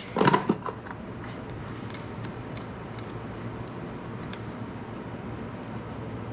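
Light metallic clicks and ticks of hand tools on the Arctic Cat 300 ATV engine's valve gear while the exhaust valve clearance is being set: a few scattered clicks over a steady low hum.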